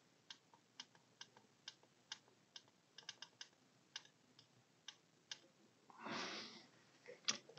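Faint, irregular sharp clicks, about fifteen in five seconds, like keys being typed, then a short breathy hiss about six seconds in and one louder click near the end.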